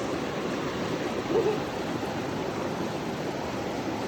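Flowing stream water, a steady rush, with one brief short pitched sound about a second and a half in.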